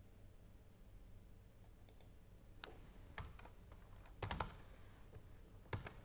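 A few scattered keystrokes on a computer keyboard, with a quick cluster about four seconds in, over a faint low hum.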